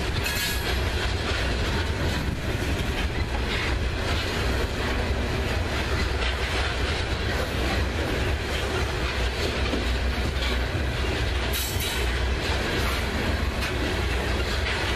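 Coal hopper cars of a freight train rolling past: a steady low rumble with the wheels clattering over the rail joints.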